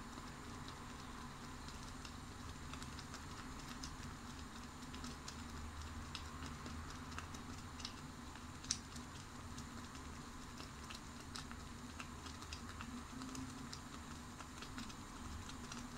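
Saucepan of oats and flax seeds simmering toward the boil, with scattered small pops and bubbling clicks over a steady faint hiss. One sharper pop comes a little past halfway.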